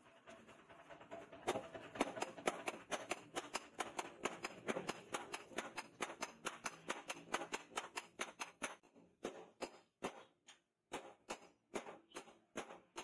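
Handheld sharpening stone worked in short, quick strokes along the edge of a steel katana blade: a rapid run of scrapes at about four a second, thinning out and slowing over the last few seconds.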